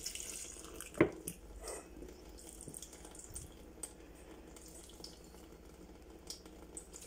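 A short pour of water from a plastic bottle onto a freshly potted plant, then water trickling and dripping from the pot's drainage hole into a kitchen sink. One sharp knock about a second in.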